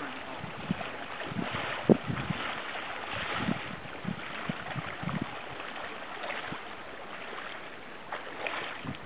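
River water flowing and splashing around a wading angler, with a few short knocks, the loudest about two seconds in.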